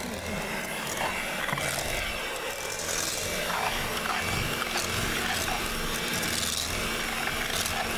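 Electric hand mixer running steadily with a constant motor hum, beating eggs in one at a time until each is fully worked into the dough.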